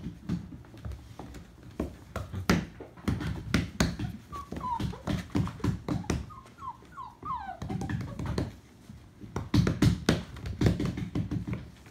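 Puppies play-fighting: scuffling and repeated taps and knocks of paws and claws on a hardwood floor, with a run of short, high, falling whimpers and squeaks in the middle.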